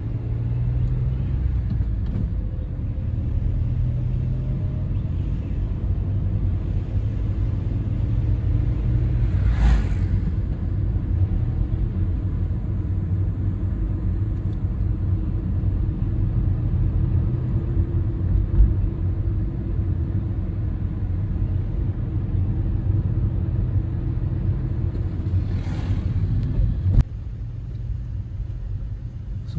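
Cabin rumble of a moving Ford Aspire car on paved road: a steady low drone of engine and tyres. Two brief whooshes pass, about ten seconds in and a few seconds before the end. Near the end a click comes, after which the rumble is quieter.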